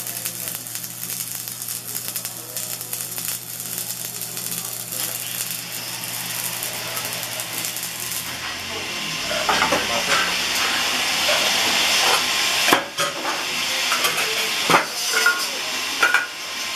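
Stick (arc) welding on the sheet steel of a cowbell body: the electrode arc crackling and hissing steadily, with a low hum under it for the first half. A few sharp metal knocks in the second half.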